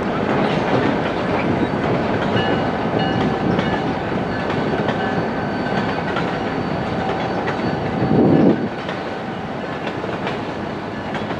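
Steady, loud rumbling noise with faint high, thin squeal-like tones above it, and a brief louder low burst about eight seconds in.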